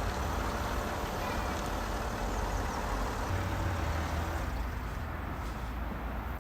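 Land Rover Discovery 4 engine running steadily as the car is moved to be parked.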